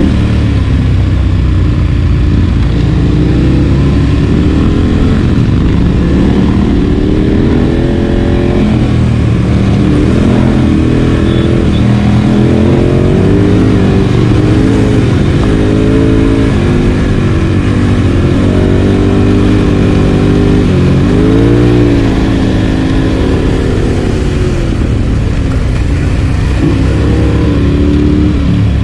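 Adventure motorcycle engine under way, its pitch rising and falling again and again as the throttle opens and closes, over a steady rushing noise.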